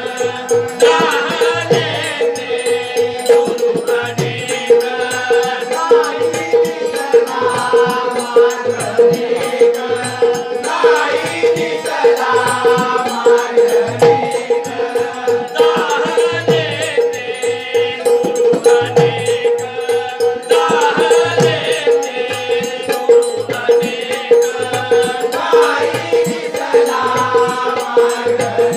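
A jalsa troupe performing a Bhim geet live: voices singing a melody over a steady held drone, with evenly repeating drum beats and jingling percussion.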